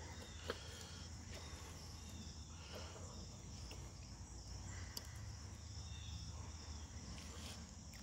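Faint, steady high insect chirring, with a few soft clicks of a fillet knife meeting a plastic cutting board as catfish fillet is cut into pieces.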